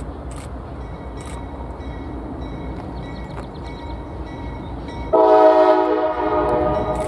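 Approaching train's locomotive horn sounding one blast of about two seconds, a chord of several tones, starting about five seconds in over a steady low rumble.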